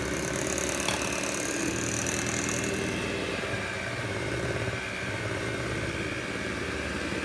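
Electric hand mixer running steadily on its lowest speed, its beaters whirring through thick cheesecake batter, with one light click about a second in.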